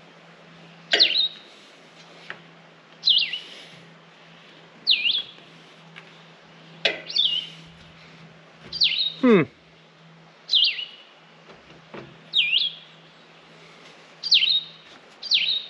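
A bird calling over and over: short, sharp chirps that sweep downward, about one every two seconds, with one longer falling squeak partway through.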